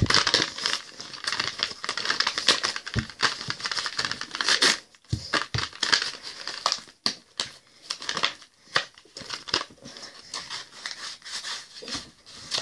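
Mouthguard retail packaging being torn open by hand: repeated crinkling, crackling and ripping as the card and plastic blister are pulled and twisted apart.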